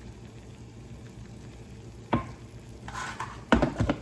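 Noodles being stirred in a pan of hot broth, a utensil knocking against the pan: one sharp knock about two seconds in, then a short scrape and a quick cluster of knocks near the end.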